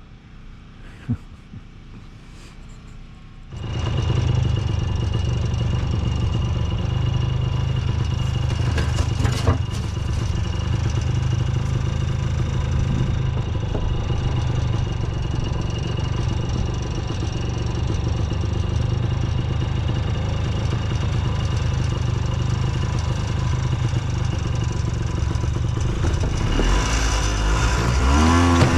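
Rebuilt Ski-Doo Tundra snowmobile engine coming in suddenly about three and a half seconds in and running steadily at a low speed, then revving up with a rising pitch near the end.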